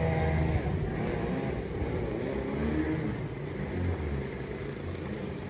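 Mini jet boat's Kawasaki 650 engine running at speed, fading as it moves away, its pitch rising and falling around the middle before strengthening again near the end.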